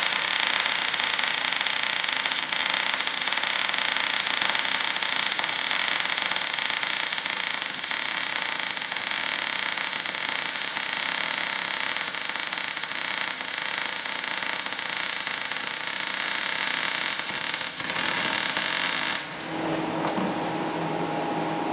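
MIG welding arc crackling steadily as a steel bracket is welded, with sparks spattering. The arc stops near the end.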